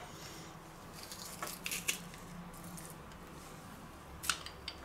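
Garlic pulp being scraped out of a metal garlic press by hand: faint soft squishing with a few light clicks, about two seconds in and again near the end.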